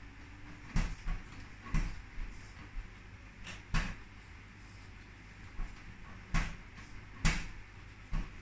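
A plastic cat flap clattering as a cat paws and pushes at it: a series of sharp clacks at uneven intervals, several of them loud.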